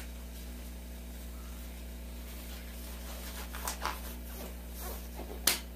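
Nitrile gloves being pulled on, with brief rubbery rustles and one sharp snap near the end, over a steady low hum.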